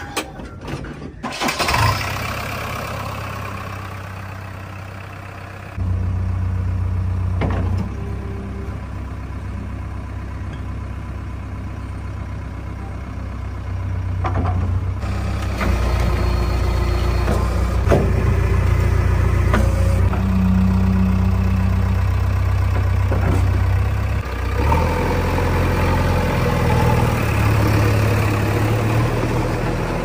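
A JCB 3DX backhoe loader's diesel engine starts about two seconds in and then runs steadily. Its speed and load step up twice, near six and sixteen seconds in.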